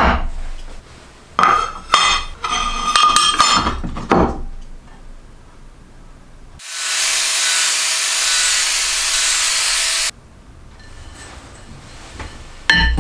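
Metal plate handled on a wooden workbench: several knocks and clinks with a ringing metallic tone over the first four seconds. Then a steady hiss lasts about three and a half seconds and cuts off suddenly, and a clank comes near the end.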